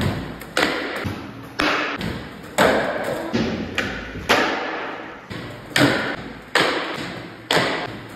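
Skateboards popping and landing as skaters do 360 pop shove-its: about eight sharp wooden cracks, roughly one a second, each ringing out in a large hall.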